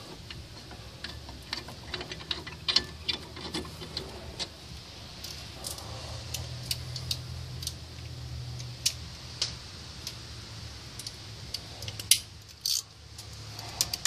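Scattered light metallic clicks and rattles of caliper bracket bolts and hand tools being handled as the bolts are threaded in by hand, with a brief louder noise about twelve seconds in.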